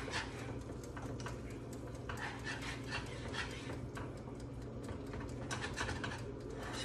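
Wire whisk beating a thick cheese sauce in a pan: a quick, uneven run of light clicks and scrapes of the wires against the pan, about three or four a second.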